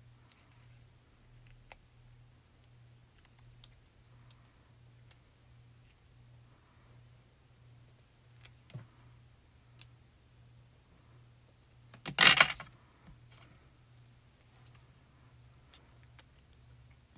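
Scattered small clicks and taps of metal tweezers and fingers handling foam tape and card while peeling the tape's backing, with one short loud rustle about twelve seconds in. A faint steady low hum runs underneath.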